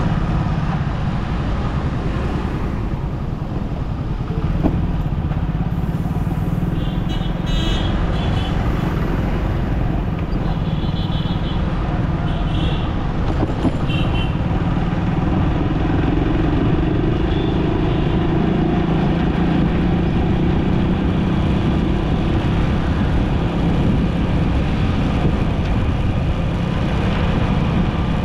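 City road traffic heard during a drive: steady engine and road noise, with several short horn toots in the first half.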